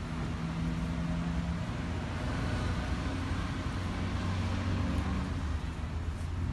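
Steady urban road traffic with the low hum of running vehicle engines.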